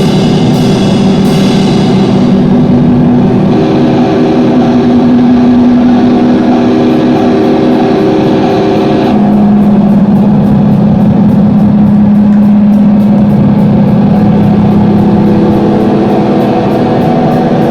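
Live band playing loudly: long held chords that change twice, over a steady beat.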